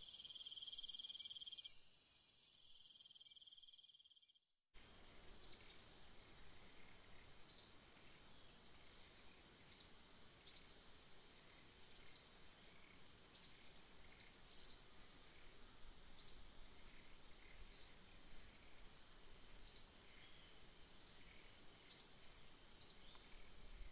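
Background music fading out over the first few seconds, then faint chirping insects: a steady high trill with short high chirps every second or two.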